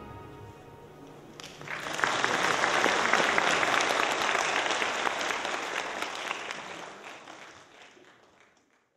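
The last notes of the dance music die away, then an audience breaks into applause about a second and a half in; the clapping fades out near the end.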